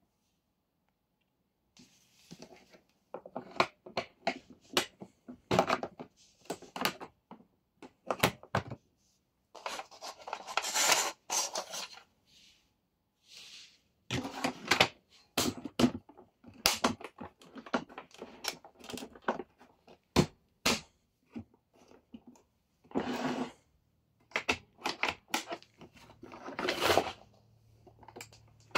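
Hard plastic clicks, knocks and scraping come in irregular bursts as the exhaust filter and grille cover of a Philips Universe vacuum cleaner are handled and fitted into the housing. The vacuum motor is off.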